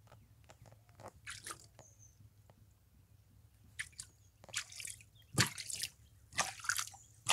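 Scattered short splashes and drips of water in a plastic kiddie pool, a dozen or so irregular ones, sparse at first and closer together and louder in the second half.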